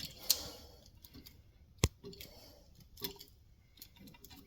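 Scattered sharp clicks and light ticks of small tools and wiring being handled, with one loud, sharp click a little under two seconds in.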